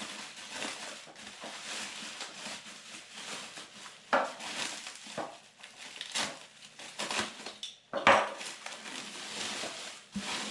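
Bubble wrap rustling and crinkling as it is pulled off a plastic canister filter, with a few sharper cracks and knocks, the loudest about four and eight seconds in.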